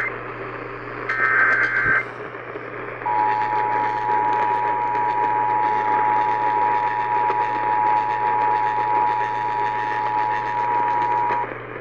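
Emergency Alert System activation over AM radio: about a second of SAME header data tones near the start, then the EAS two-tone attention signal, a steady two-pitch tone lasting about eight seconds that cuts off just before the end. Radio hiss and hum run underneath. The tones open a relayed severe thunderstorm warning.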